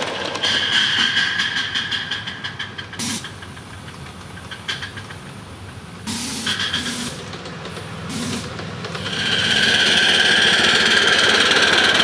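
Small ride-on live-steam locomotives running on a miniature railway track, with rapid, even exhaust beats and rail clatter. A steady high-pitched tone sounds through the first few seconds and again near the end.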